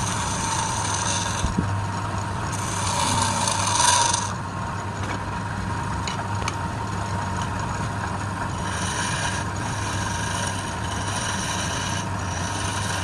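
A wood lathe runs with a steady hum while a turning tool cuts the spinning wood in several hissing, scraping passes. The loudest pass comes about four seconds in.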